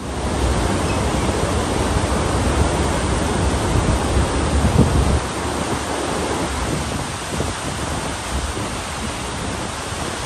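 Steady rush of a cruise ship's wake churning the sea, with wind rumbling on the microphone.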